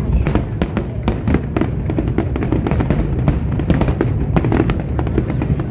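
Aerial fireworks display: a dense run of shell bursts and crackles, several bangs a second, over a continuous low rumble.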